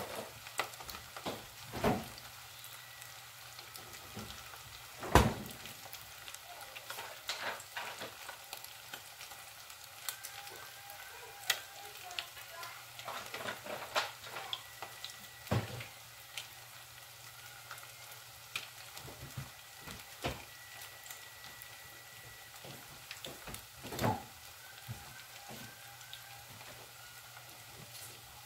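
Eggplant-and-chicken balls (bola-bolang talong) frying in oil in a small saucepan: a steady sizzle broken by irregular sharp pops and crackles, the loudest about five seconds in.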